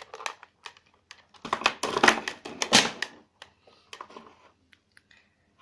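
Plastic slime container and slime being handled, making scattered clicks and crackles with a dense run of them about a second and a half in.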